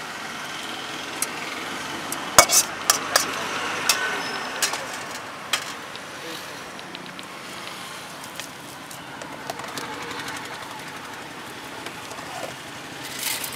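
Metal spatula clanking and scraping against a wok as the scrambled egg is scooped out onto a plate, a quick run of sharp clanks in the first half, over the steady background noise of the stall.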